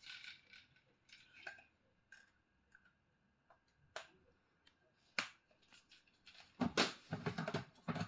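Small plastic clicks and taps from handling the parts of a Lechuza self-watering planter. About six and a half seconds in, louder rubbing and clattering of plastic as an insert is pushed down into the planter.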